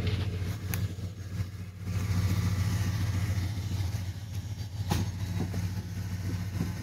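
Ford pickup truck's engine idling with a steady low hum, with a couple of light knocks near the start and about five seconds in.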